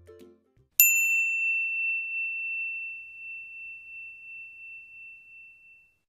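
A single high bell ding signalling that a countdown timer has run out. It is struck once about a second in and rings out, slowly fading, for about five seconds.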